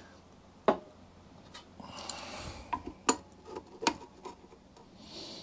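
Scattered metallic clicks and clinks of hand tools working a nut and bolt on an old push mower's metal frame, with a short scraping rustle about two seconds in.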